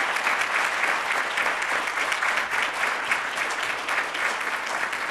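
A large audience applauding steadily: a dense, even clatter of many hands clapping.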